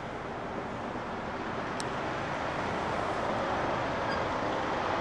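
Road traffic noise from approaching vehicles: a steady rumble of engines and tyres that grows slowly louder as they near. There is one brief sharp tick about two seconds in.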